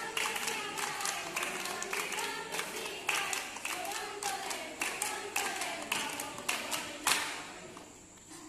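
A group of girls singing together while clapping their hands in time, about two to three claps a second. The clapping and singing stop about seven seconds in.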